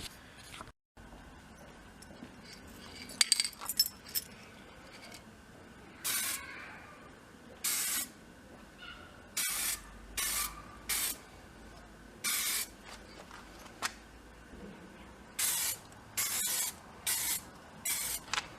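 Aerosol spray paint can sprayed in a dozen or so short hissing bursts of about half a second each, starting about six seconds in. A few sharp clinks and scrapes come a few seconds before the spraying.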